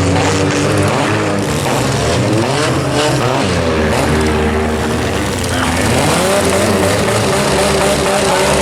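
Several compact-car engines revving hard during a demolition derby, their pitches rising and falling and overlapping as the cars accelerate and back off.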